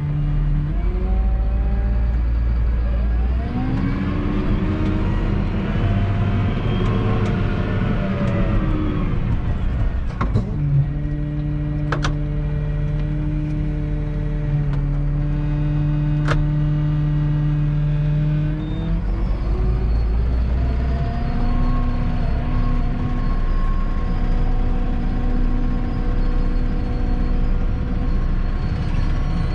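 Massey Ferguson 7718S tractor's six-cylinder diesel engine heard from inside the cab. It revs up and falls back a few seconds in, then runs steadily, and settles to a different pitch later on. A few sharp clicks come through midway.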